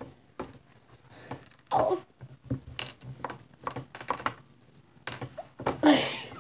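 Scattered small clicks and knocks of handling, with a few brief wordless vocal sounds from a girl. She gives a short laugh near the end, the loudest sound.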